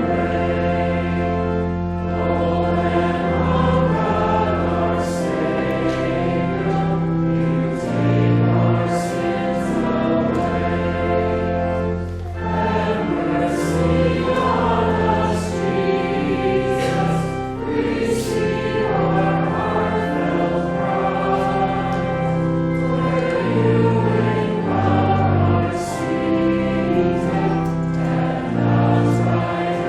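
A group of voices singing a hymn in church over sustained low accompaniment notes that change every second or two.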